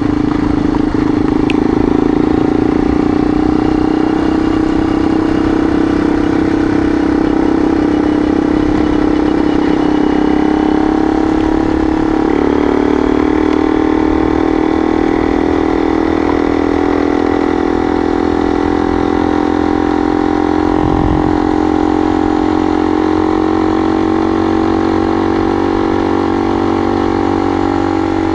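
Yamaha XT dual-sport motorcycle engine running steadily as the bike rolls easily along a loose gravel road, its note shifting slightly about twelve seconds in.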